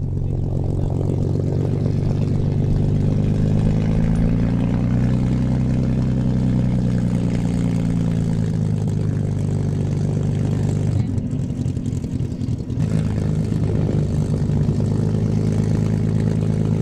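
P-51D Mustang's Packard Merlin V-12 piston engine running steadily as the fighter taxis, its pitch rising a little for a few seconds. About eleven seconds in, the sound breaks briefly and gives way to a Spitfire's Merlin V-12 running steadily as it moves low along the runway.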